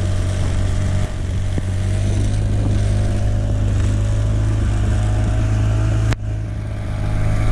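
Hangkai 6 hp two-stroke outboard motor running steadily while being broken in, with a brief dip in level about six seconds in.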